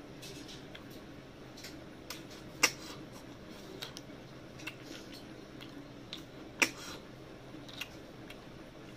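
Eating river snails with rice by hand: scattered short mouth clicks and smacks, with two sharper ones about four seconds apart.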